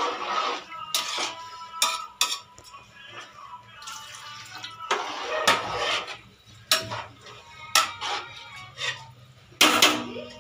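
Metal spoon and ladle clinking and scraping against a metal cooking pot as rice is stirred, with a dozen or so sharp clinks at uneven intervals.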